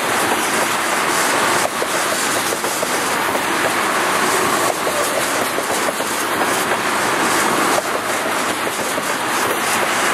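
Freight train of ethanol tank cars rolling past close by: a steady rumble of steel wheels on rail, with scattered clicks and clatter as the wheels cross the rail joints.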